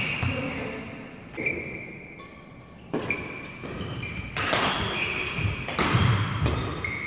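Badminton rally: racket strikes on the shuttlecock about every second and a half, with shoe squeaks on the court floor and footfalls between the hits.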